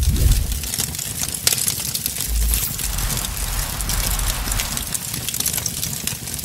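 Intro sound effect: a deep boom, then a steady crackling hiss over a low rumble.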